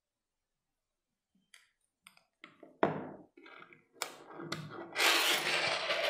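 Handling noises at close range: a few light taps and clicks, a sharp thunk about three seconds in, then a louder scraping rustle near the end, as the thermal-paste syringe is set down and the tools are handled.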